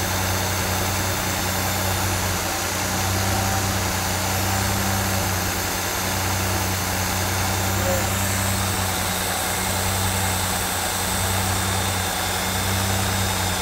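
Lamborghini LM002's V12 engine idling steadily, with a steady hiss of air drawn into the throttle bodies. The hiss is being compared bank by bank to synchronise the throttles.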